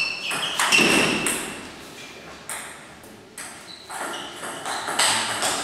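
Table tennis ball clicking off paddles and the table in a rally, a string of sharp, unevenly spaced pings with a quieter gap in the middle.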